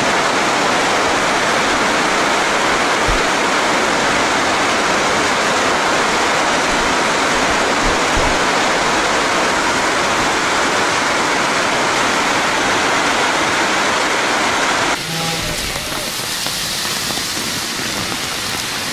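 Heavy rain pouring down, a loud steady rushing hiss. About fifteen seconds in the sound steps down to a somewhat quieter rush.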